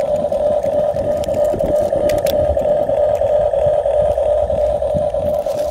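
Huina 1550 radio-controlled excavator running, its small electric motors and gears giving a steady whirring whine over a low rumble, with a few light clicks.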